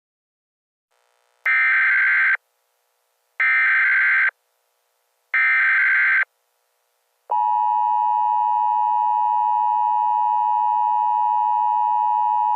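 Emergency Alert System tones: three short, buzzy digital header bursts, each under a second long, then about seven seconds in the steady two-tone EAS attention signal begins and holds. These signal the start of a new emergency alert.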